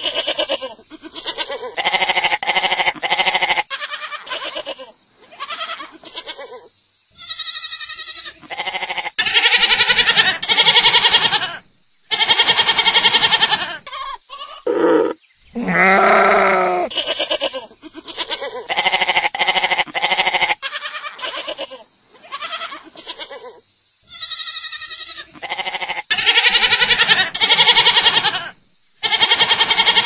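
Domestic goats bleating, one long wavering call after another with short pauses between them. Some calls are higher and thinner than others. The same run of calls repeats about halfway through.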